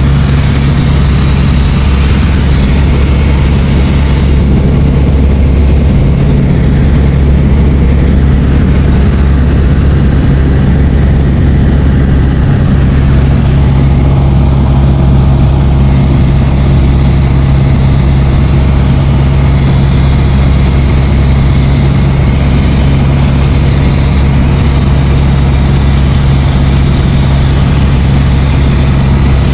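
Light training aircraft's engine and propeller running at a steady, loud drone, with no change in pitch.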